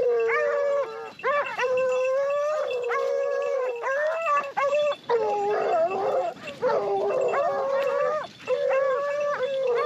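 A pack of Porcelaine scent hounds giving tongue on a wild boar's scent trail: long, drawn-out baying notes, one after another, with several dogs overlapping.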